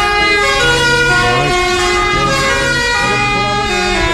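Background music: layered, sustained notes that move in steps from one held pitch to the next, with a few short wavering lines.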